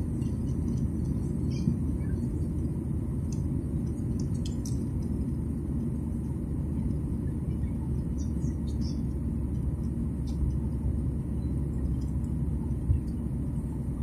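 Steady low rumble of a jet airliner in cruise heard from inside the cabin: engine and airflow noise, with faint scattered ticks and one brief knock near the end.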